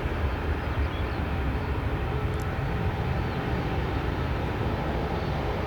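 Distant airliner jet engines running on the ground: a steady low rumble with a faint steady whine.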